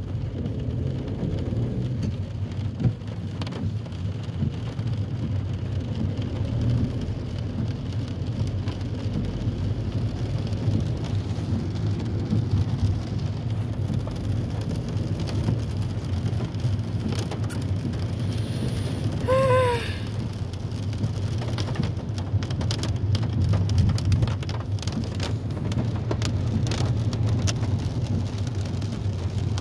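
Inside a moving car in heavy rain: a steady low rumble of the car and its tyres on the wet road, with the hiss and patter of rain on the body and windshield. A short squeaky tone sounds once about two-thirds of the way through, and scattered sharp taps follow.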